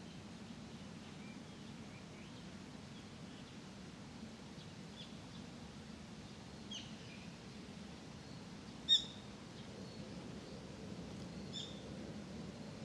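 Small birds chirping now and then in short, high calls, with one sharp, louder chirp about two-thirds of the way through. Under them runs a steady low hum of distant traffic.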